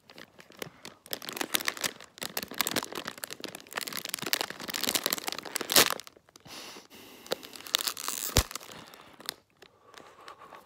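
Close crinkling and crunching: a crackly popcorn bag rustling while Holy Corn sea-salt popcorn is chewed, in dense irregular crackles. There is a single low thump about two-thirds of the way through.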